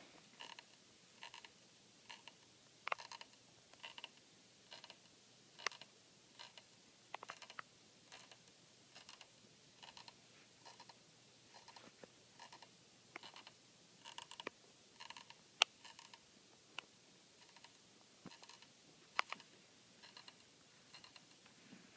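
Faint, scratchy clicking coming from a coffee table, a small tick about once a second with a few sharper clicks, heard as a grinding sound of unknown cause.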